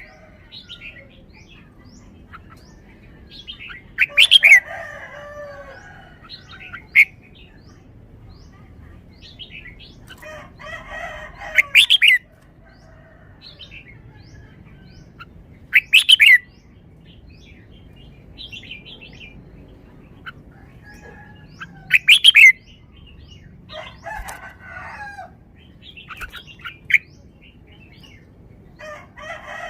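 Red-whiskered bulbul singing short, loud, whistled phrases every few seconds, with quieter chattering between them.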